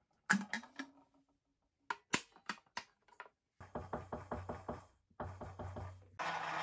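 A knock as the clear plastic dome is set on the Rain Dancers lamp's base, then about five sharp finger snaps. Two runs of rapid pulses over a low hum follow as the sound-reactive lamp's mechanism responds, and a steady noise sets in near the end.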